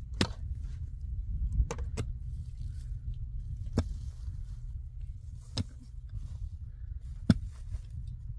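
A series of six sharp knocks, mostly about two seconds apart, the loudest near the end, over a steady low rumble.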